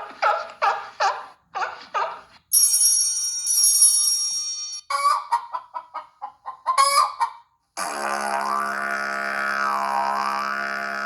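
Preloaded Google Pixel 3a ringtones playing one after another: a run of short pitched pulses, then a bright bell-like chime for about two seconds, more short pulses, and after a brief gap a steady low drone whose tone sweeps up and down.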